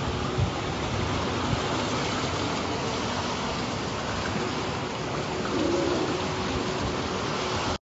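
Swimming-pool water splashing and churning around a swimmer who has just plunged in, a steady rush of water noise. It cuts off abruptly near the end.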